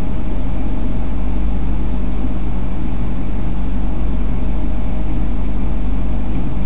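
Domestic cat purring loudly and steadily, right up against the microphone.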